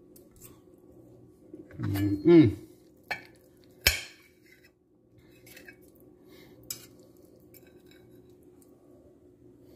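Knife and fork cutting a stuffed pepper on a ceramic plate, with sharp clinks of metal on the plate, the sharpest just before four seconds in. A man's short voice sound comes about two seconds in, over a steady low hum.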